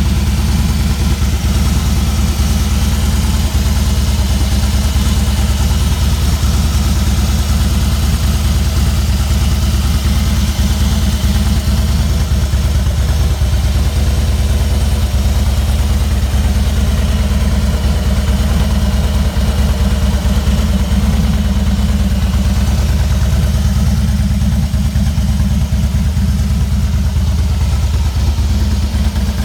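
A 2012 Harley-Davidson Fat Boy Special's Twin Cam 103 V-twin idling steadily through Cobra exhaust pipes.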